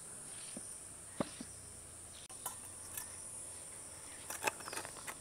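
Steady high-pitched drone of insects outdoors, with a few soft clicks and taps as wet rice paste is scraped off a stone grinding slab into a steel bowl.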